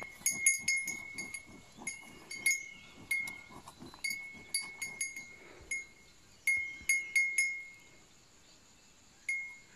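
Metal bell on a cow clanking irregularly as the animal moves. Each clank rings out briefly. The clanks come thick at first, die away after about eight seconds, and one more comes near the end.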